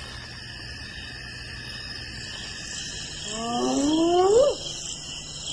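Spotted hyena whooping: one rising call, climbing in pitch and loudness before cutting off sharply, over a steady chorus of crickets.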